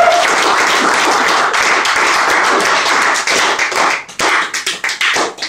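Small audience clapping. The applause thins out about four seconds in to a few scattered claps.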